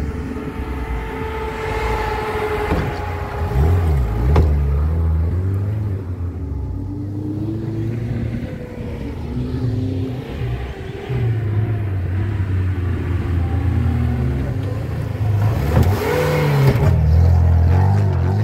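Off-road racing vehicle engines running and revving, their pitch rising and falling, loudest near the end.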